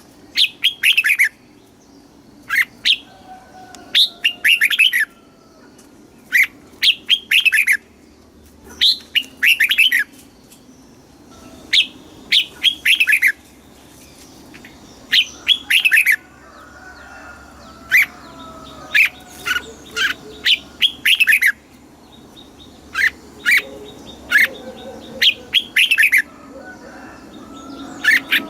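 Red-whiskered bulbul singing: short, bubbly phrases of a few quick, falling whistled notes, repeated every second or two.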